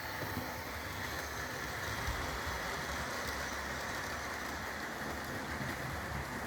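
Model trains running on a layout's track: a steady whirr of small electric motors and wheels rolling on the rails, holding an even level throughout.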